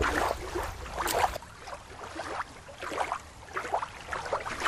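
Water lapping and splashing in irregular bursts, with no steady tone.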